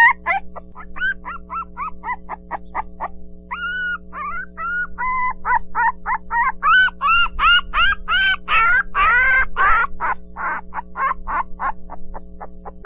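Puppies yelping and whining: a fast, overlapping run of short high-pitched cries, several a second, over a steady background hum.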